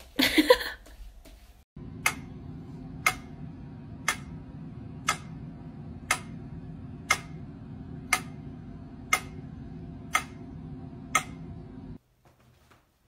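A clock ticking once a second: ten sharp, evenly spaced ticks over a steady low hum. A short, loud, noisy sound comes in the first second, and it goes near-silent near the end.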